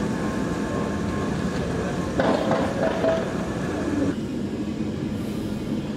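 Steam railway station ambience: a steady hiss from a standing steam locomotive that cuts off about four seconds in, with a brief clatter about two seconds in.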